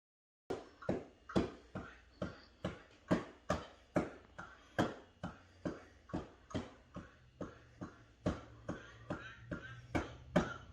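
A quick, slightly uneven series of sharp knocks, about two and a half a second, each with a short ring, starting about half a second in.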